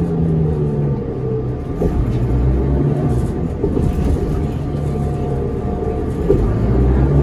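Inside a New Flyer D40LF transit bus: its Cummins ISL diesel engine and drivetrain run at a steady low rumble, the engine note starting to rise again near the end.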